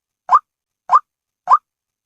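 White-breasted waterhen call: short, rising 'kwak' notes repeated at an even pace, about one every 0.6 seconds, three of them here. The identical, machine-regular repeats are a looped recording played as a lure to call waterhens in.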